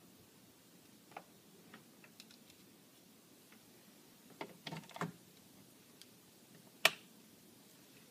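Small plastic clicks and taps of a mains plug being handled and pushed into a power strip socket, a cluster of them about halfway through. Near the end, one sharp, louder click of the power strip's rocker switch being flipped on.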